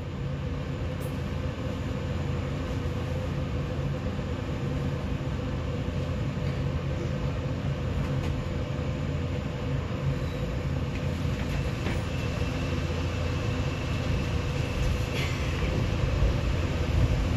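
Steady running rumble of a Line 4 subway train, heard inside the carriage, with a faint high-pitched tone from about eleven to fifteen seconds in. The noise grows a little louder near the end.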